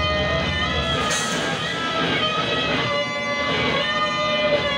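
Instrumental music from a modular synthesizer, effects-processed bass guitar and drums: several layered pitched tones that bend and waver, with a few held steady, over a low rumble that thins out about a second in.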